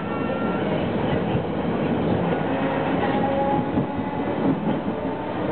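City tram running along street track, heard from on board: a steady rumble of wheels on rails and running gear.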